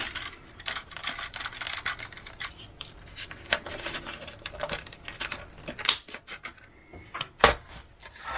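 Hands handling a foam RC model plane and small plastic parts on a wooden desk: a run of light clicks, taps and rustles, with two sharper clicks about six and seven and a half seconds in.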